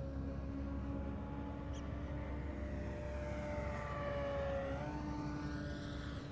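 Steady engine drone with low rumble, its pitch bending down and back up about four to five seconds in as something passes.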